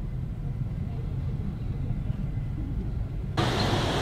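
Low, steady road rumble of a car heard from inside its cabin, cutting off abruptly about three seconds in to a louder, hissing outdoor street noise of passing traffic.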